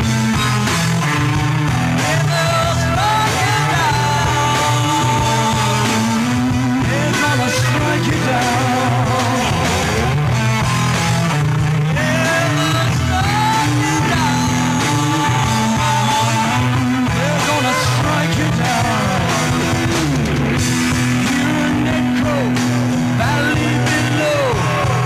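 Rock band playing live: a male singer over electric guitar and drums.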